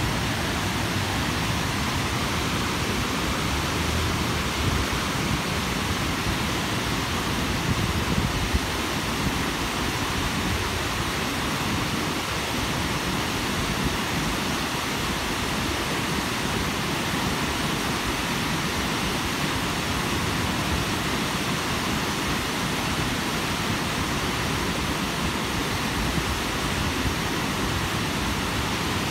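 Steady rush of water pouring over a concrete dam spillway.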